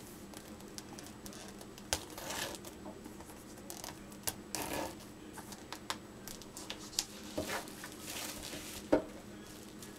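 Handling noises: short rustles and crinkles broken by a few light clicks and knocks, the sharpest knock near the end.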